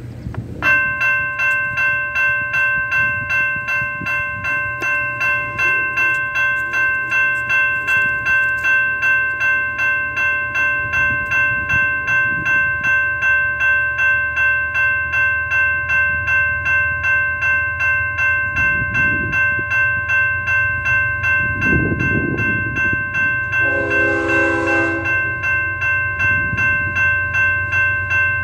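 Railroad grade-crossing bell ringing in a steady, even rhythm, starting about a second in: the crossing warning set off by an approaching train. A short train horn blast sounds about 24 seconds in.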